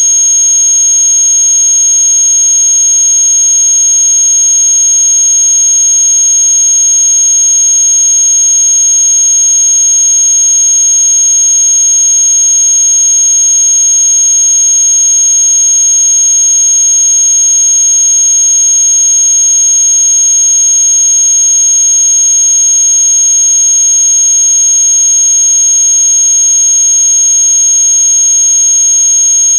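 A loud, unchanging synthetic electronic tone: a piercing high whistle over a lower buzz, held without a break. It is a noise track made to be played against noisy neighbours.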